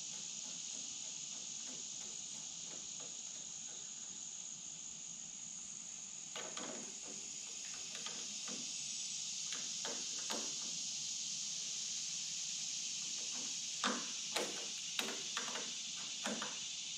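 Scattered light clicks and taps of hand tools working on a VW engine's carburetor fuel intake fitting, in clusters about six seconds in and again near the end, over a steady high hiss.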